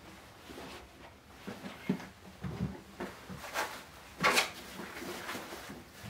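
Irregular soft knocks and rustles of things being handled and moved about in a small room, the loudest a sharp clatter about four seconds in.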